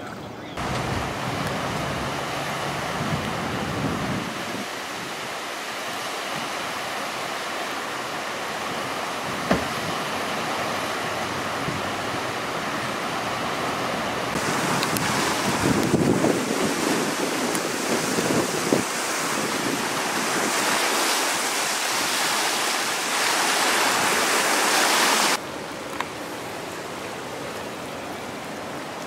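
Steady rushing water and rain that changes abruptly several times. It is loudest in the middle stretch, where fast floodwater of the swollen James River pours under a road bridge. Near the end it drops sharply to a quieter, even hiss of rain falling on flooded ground.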